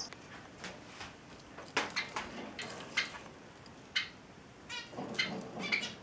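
Small pet finches calling in their cage: a string of short, separate chirps at irregular intervals, coming thicker in the last couple of seconds.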